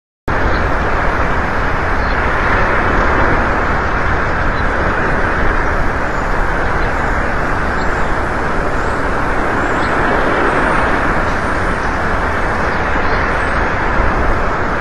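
Strong wind buffeting an outdoor eagle-nest camera microphone: a loud, steady rushing rumble that cuts in abruptly and never lets up.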